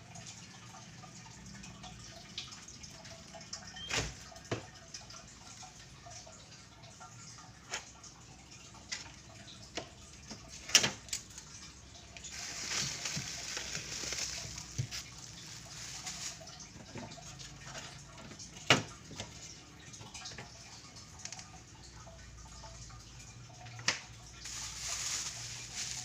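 Water splashing and running in a kitchen sink or basin, louder in two stretches, with scattered sharp knocks and clinks.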